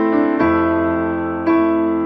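Background music: slow piano chords held and sustained, a new chord struck about once a second.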